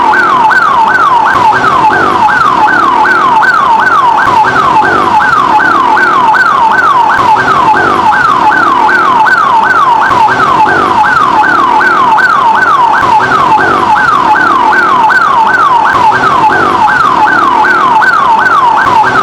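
Ambulance siren wailing continuously in a fast repeating cycle, each note falling from high to low and jumping back up, about two times a second.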